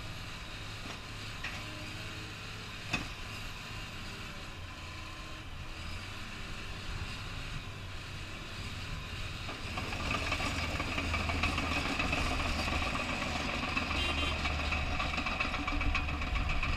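Caterpillar D6K2 dozer's diesel engine running at idle, with a single sharp knock about three seconds in. About ten seconds in it gets clearly louder and busier as the dozer moves off on its tracks.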